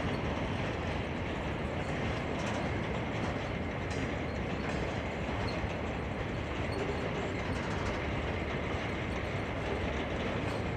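Freight train of boxcars rolling past: a steady noise of wheels on the rails with a few faint clicks.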